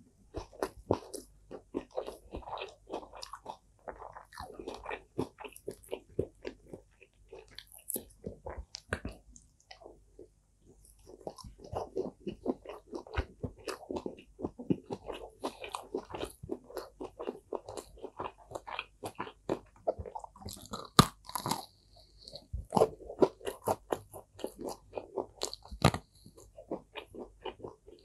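Close-miked mouth sounds of a person chewing food: a steady run of crunchy chews, with a short pause about ten seconds in and a few sharper crunches later on.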